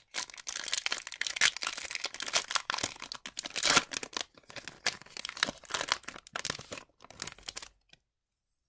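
Wrapper of an Upper Deck MVP hockey card pack being torn open and crinkled by hand, a dense run of crackles and rips. It cuts off suddenly to silence about a second before the end.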